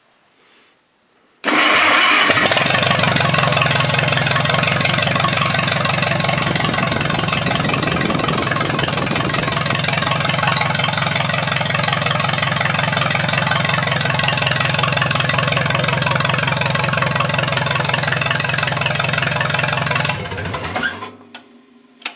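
International 300 Utility tractor's four-cylinder engine starting suddenly about a second and a half in, then running steadily at idle. Near the end it is switched off and winds down to a stop.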